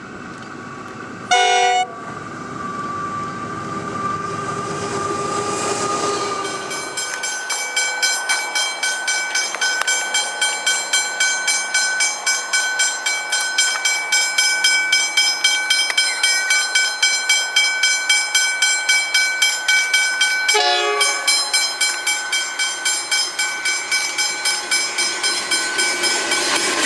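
Level-crossing bell ringing steadily at about two strokes a second as Pacific National NR-class diesel locomotives approach. A short train horn blast sounds about a second and a half in, the loudest moment, and another short blast comes about twenty seconds in.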